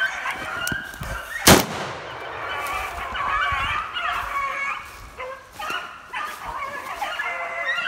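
A pack of beagles baying in full cry on a rabbit's trail, many overlapping wavering howls. One sharp, loud crack about a second and a half in.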